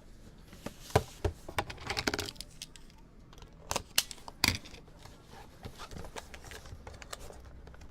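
Packaging of a sealed trading-card hobby box being opened by hand: plastic wrap crinkling and tearing, with several sharp clicks and taps as the cardboard box is handled.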